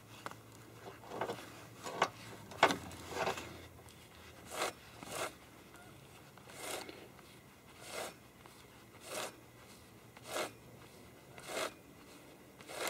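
Chainsaw chain pulled around the bar by hand in short strokes, the drive links rasping through the bar groove about once a second, after a few sharper clicks in the first few seconds.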